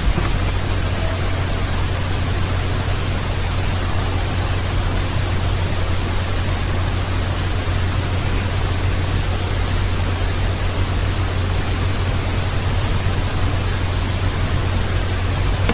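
Steady hiss with a constant low hum: the recording's own background noise, with nothing else happening.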